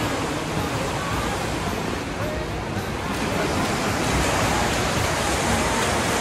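Steady rushing and splashing of water from swimmers racing in a pool.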